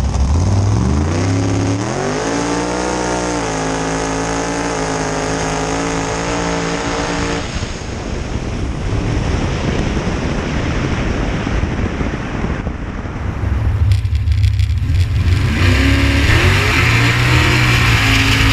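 Drag-race car engine accelerating hard, its pitch climbing over the first two seconds and then held high. About seven seconds in the engine note gives way to a loud rush of noise, and another rising engine note comes in near the end.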